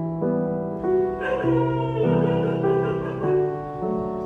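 Instrumental background music with piano, a slow run of held notes that change about once a second.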